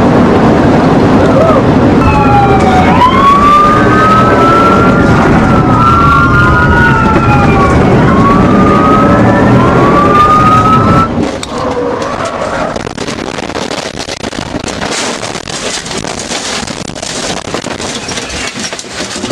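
Several police sirens wailing, their rising and falling glides overlapping, over a loud, steady rumble of road and engine noise. About eleven seconds in it cuts to a quieter stretch of noise with scattered clicks.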